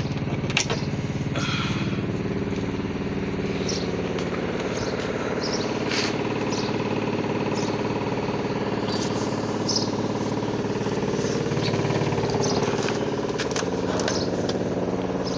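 A motor running steadily with an even pitched hum, and a few sharp clicks and knocks over it.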